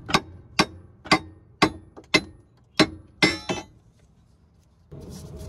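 Short-handled steel sledgehammer striking the sway bar at its end link under a 1987 Volvo 740's front suspension: about eight sharp, ringing metal-on-metal blows, roughly two a second, the last two in quick succession. The blows drive the sway bar up off the end link stud. They stop after about three and a half seconds, and a low rustle of handling follows near the end.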